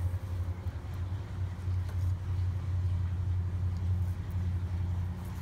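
Steady low hum, with a few faint light clicks from scissors snipping and handling thin krystal flash strands.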